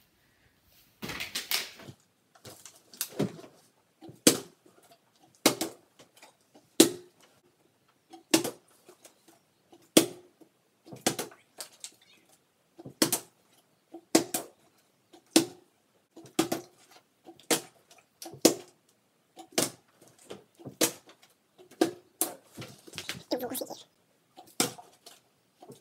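A partly filled plastic water bottle being flipped and landing with a thud on the wooden floor, over and over, about once every second or so, some twenty times: repeated attempts at the water bottle flip.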